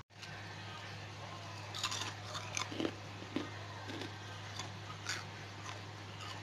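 Crisp crunching of fried sweet potato chips being bitten and chewed: a run of irregular crunches starting about two seconds in, over a steady low hum.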